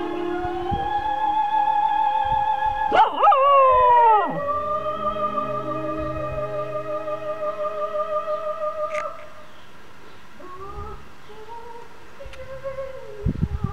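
A cocker spaniel howls along to opera-style music. About three seconds in comes one loud howl that swoops up and down in pitch over the long, wavering sung notes. The music stops about nine seconds in, and a few shorter, quieter howls follow near the end.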